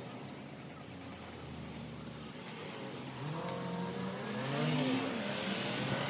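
A car passing by, its engine note rising and falling while tyre noise swells to its loudest near the end.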